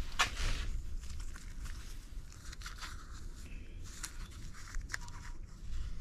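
Faint rustling and scratching of a gloved hand handling a paper Plastigauge scale against a main bearing shell, in short irregular bits over a steady low rumble.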